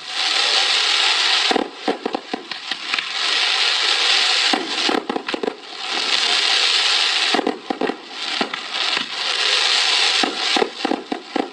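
Fireworks: stretches of steady hissing alternate with bursts of rapid crackling, about four times over.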